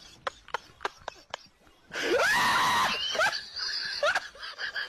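A series of short sharp sounds about three a second, then a loud scream about two seconds in that lasts about a second, followed by two short rising shrieks.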